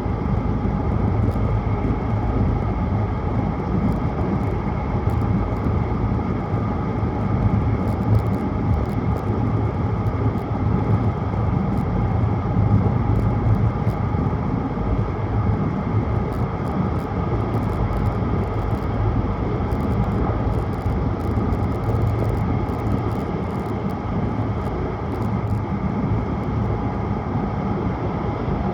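Tohoku Shinkansen Hayabusa train running at speed, heard from inside the passenger cabin: a steady low rumble and rush of running noise, with faint scattered ticks.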